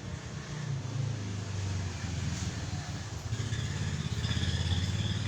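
A motor vehicle's engine running steadily, growing louder in the second half as a higher whine joins it.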